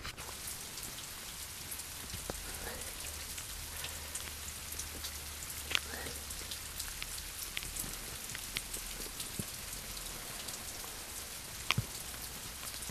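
Rain pattering steadily, with many scattered sharper drops ticking through it.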